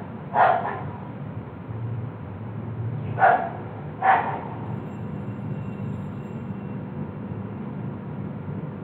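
Three short, sharp yelp-like calls: one about half a second in and two more about a second apart around three to four seconds in, over a low steady hum.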